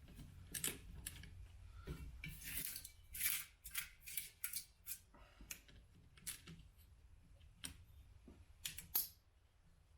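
Small, irregular clicks and short scrapes of hand work on a soundbar's circuit board and plastic case as the board is worked loose. The last of them comes about nine seconds in.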